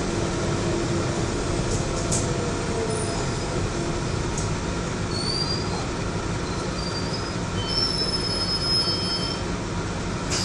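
London Underground 1992 Stock train heard from inside the carriage as it slows into a station: a steady running rumble, with thin high-pitched wheel and brake squeals from about halfway through.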